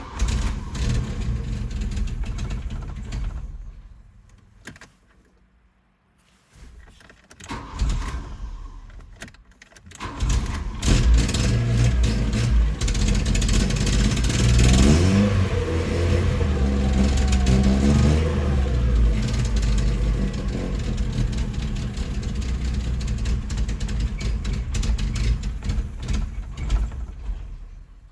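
1986 Volkswagen Jetta engine being started with difficulty: the starter cranks for about three seconds without the engine running, there is a brief second attempt, then about ten seconds in the engine catches and runs, revving up and down a few seconds later before settling to a steady run. The long cranking before it fires is the hard-starting problem.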